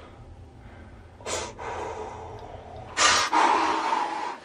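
A boy's sharp, noisy breaths in pain as antibiotic ointment is rubbed into his raw, freshly scalped patch of scalp. There is a short breath about a second in, then a longer, louder one from about three seconds in.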